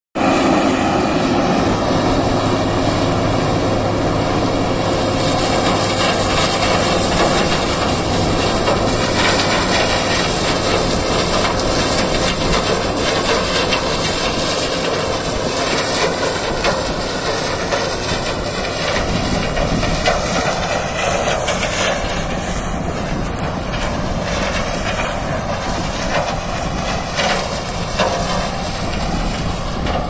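Shaktimaan 3737 sugarcane harvester's diesel engine and cutting and elevator machinery running steadily under load as it harvests cane. The drone eases a little as the machine draws away.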